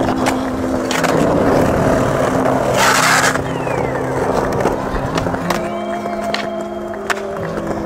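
Skateboard wheels rolling steadily over concrete, with a short, harsh scrape about three seconds in and a few sharp clacks of the board.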